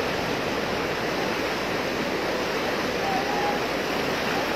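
Fast-flowing brown floodwater from a flash flood rushing down a street in a strong current, making a steady rushing sound.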